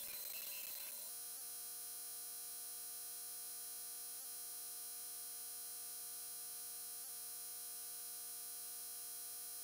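Steady electrical hum with many fixed tones and a high whine, settling in about a second in, with a faint tick roughly every three seconds.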